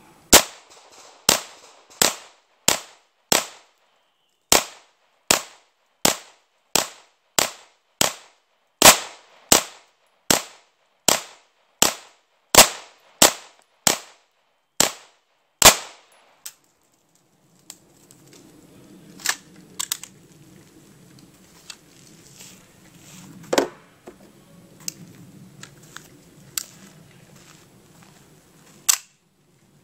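Chiappa PAK-9 9mm pistol with a linear compensator fired semi-automatically: a steady string of about two dozen shots, roughly one every half to two-thirds of a second, stopping about sixteen seconds in. After that, a few scattered fainter cracks over a low rustle.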